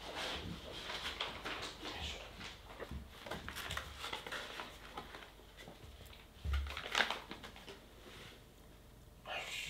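A person's footsteps and a mameshiba's paws pattering on the floor, with light rustling as a treat package is handled. There is a single louder knock about seven seconds in.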